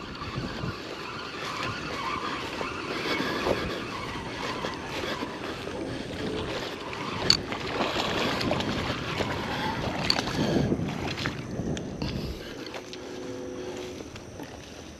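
A hooked channel catfish splashing and thrashing in shallow creek water as it is fought in to the bank, with wind buffeting the microphone. The splashing comes and goes in several surges and eases near the end.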